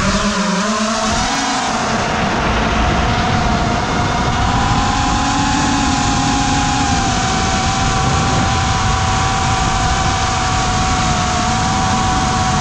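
FPV quadcopter's motors and propellers whining, rising in pitch over the first second or two as the throttle comes up, then holding a steady tone under heavy rushing wind noise.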